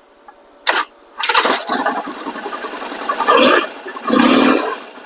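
A 2011 Harley-Davidson Sportster Forty-Eight's air-cooled 1200 cc V-twin started on the button, catching right away. It swells louder twice, then settles to a lower running level near the end.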